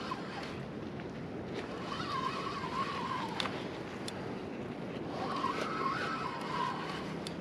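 Spinning fishing reel whining in two wavering bursts as line is worked against a hooked fish, with a couple of sharp clicks in between, over steady wind noise.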